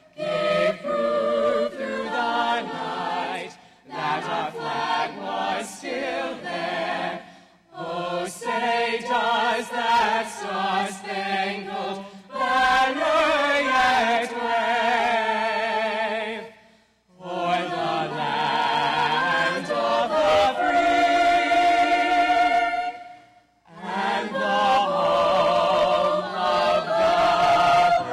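High school choir singing a national anthem in sung phrases with short breaks for breath between them. The last phrase ends on a long held note.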